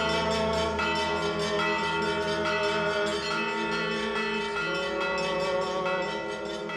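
Several church bells of different pitches struck rapidly in a festive peal, their tones ringing over one another.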